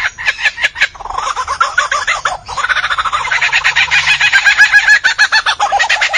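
Superb lyrebird singing a mimicry song: a quick run of sharp clicks in the first second, then a fast, chattering stream of rapidly repeated notes that grows louder toward the middle.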